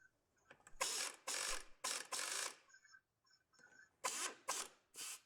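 A run of short scraping or rustling noises, about half a second each, with a few faint light clinks between them.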